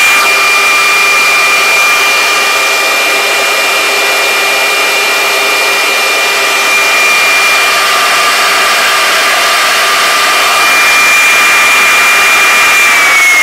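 Columbo 5 hp three-phase router spindle running at about 24,000 rpm on an inverter: a steady high whine over the loud rush of its cooling fan, running dead smooth. Near the end the whine starts to drop in pitch.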